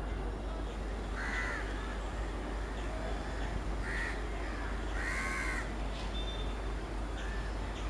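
Crows cawing several times, with three or four harsh calls and the longest about five seconds in, over a steady low rumble.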